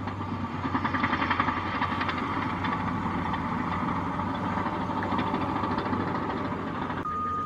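Heavy earth-moving machines' diesel engines running steadily, with rattling and clatter from the work. A reversing alarm begins beeping near the end.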